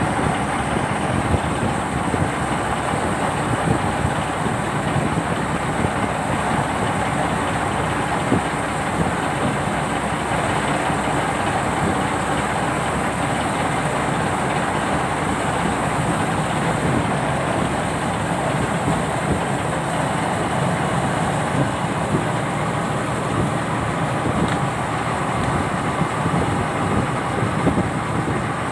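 Boat's turbocharged truck engine running steadily under way.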